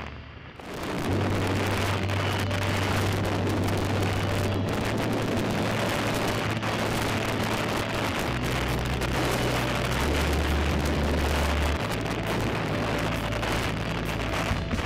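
Onboard sound of a KTM 450 enduro motorcycle being ridden along a gravel track, with wind rush and tyre noise over the single-cylinder four-stroke engine's low drone. The drone holds steady and drops and rises in pitch a few times, as with gear changes.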